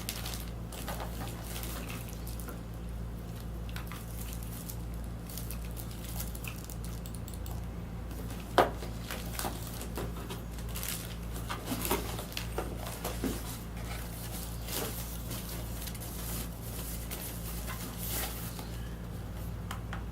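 Unboxing handling noise: scattered taps, clicks and rustles of hands on packaging and a tablet over a steady low hum, with one sharper click about eight and a half seconds in.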